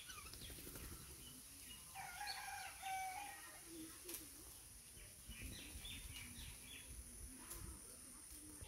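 A rooster crowing once, faintly, about two seconds in: one held call lasting about a second and a half. Small birds chirp a few times around the middle.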